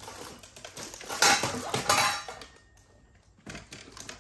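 Metal cookware and lids clattering and clinking as they are handled and moved about, loudest about one to two seconds in, then a couple of light knocks near the end.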